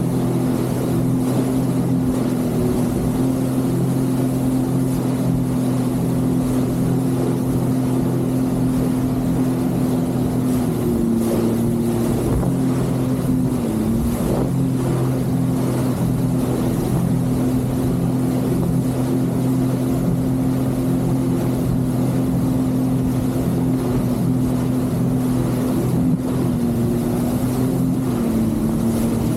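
Jet ski engine running at a steady pace under way, its pitch dipping briefly a few times.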